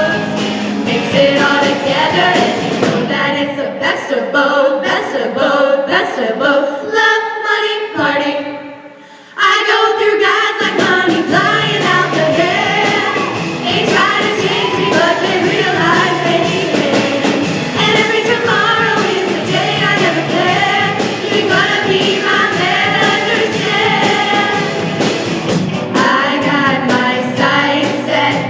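A group of women singing together over a pop backing track. About a third of the way in the accompaniment thins out, the sound dips briefly, and then the full track with bass comes back in.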